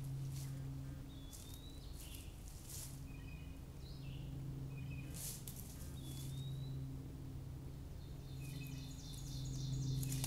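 Footsteps crunching through dry leaf litter, with songbirds chirping in short rising calls and a fast chirping run near the end. A steady low hum runs underneath.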